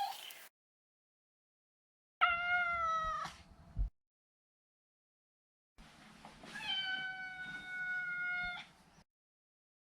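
Maine Coon cat meowing: the tail end of one meow, then a meow of about a second starting about two seconds in, then a longer, steady meow of about two seconds near the end, with dead silence between the calls.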